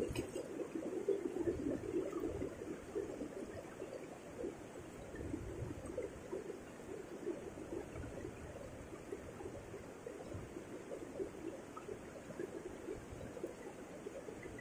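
Shallow river rapids rushing over rocks, a steady rush of fast-flowing water.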